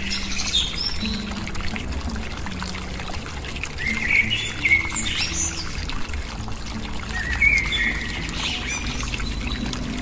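A thin stream of water pouring from a miniature electric water pump into a shallow model pond, with bird song chirping in three short phrases over it.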